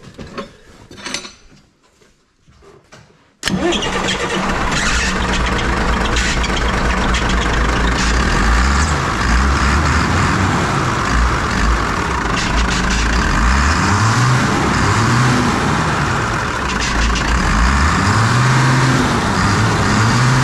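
Diesel engine starting about three seconds in, catching at once, then running loudly and revved up and down several times. It is the first run after its in-line fuel injection pump was replaced, and it runs briskly.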